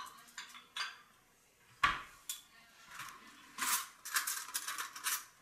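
Kitchen dishes and glass jars being handled at a cupboard: scattered clicks and knocks, a heavier knock about two seconds in, then a run of clinking and rattling near the end.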